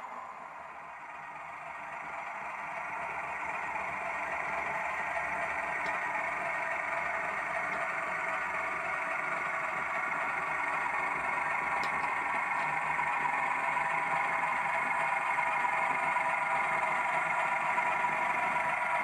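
Diesel engine sound from a Hornby TTS sound decoder, playing through the small speaker of a model Class 31 locomotive as it runs along the track. It is a steady, thin engine drone with little bass, and it grows louder as the locomotive approaches.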